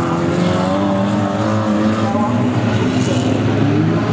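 Several Lightning Rods race cars' engines running hard as the pack laps the oval. Overlapping engine notes rise and fall as the cars accelerate and pass.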